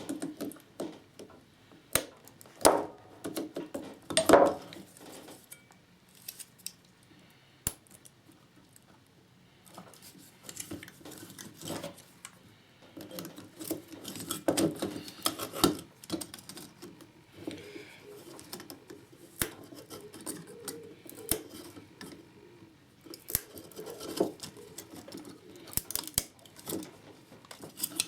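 Irregular clicks, knocks and clinks of small hard parts being handled: an 18650 lithium cell being pushed and worked at to free it from the plastic cell holder of a Dyson battery pack, where it is stuck, seemingly glued in. The knocks are loudest in the first few seconds and sparse for a while around the middle.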